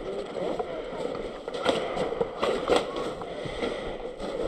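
Footsteps crunching through snow, an uneven series of short crunches.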